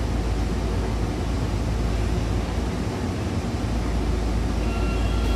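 Tokyu 8500 series electric train running, heard from inside the car: a steady low rumble of wheels and Hitachi traction motors. Faint thin whining tones come in near the end.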